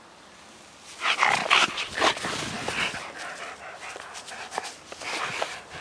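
German Shepherd dog making short, rough, noisy sounds close to the microphone, loudest between about one and three seconds in, then fainter.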